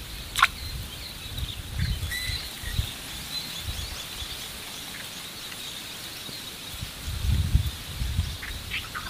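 Faint scattered bird chirps over a steady high insect drone, with one short falling call about half a second in. Low rumbles come twice, about two and seven seconds in.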